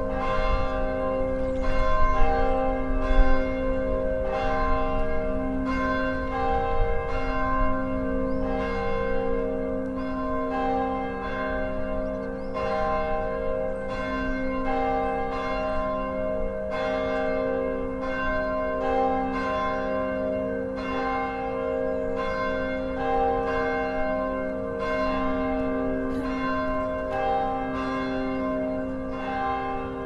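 Vídalínskirkja's swinging church bells ringing together in peal. Their strokes overlap in an irregular rhythm, and each strike's long humming tone carries on under the next. Heard close up inside the bell tower.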